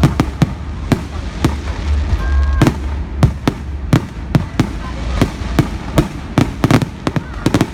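Fireworks display: shells bursting in sharp, irregular bangs, a couple each second and coming thicker near the end, over a steady low rumble.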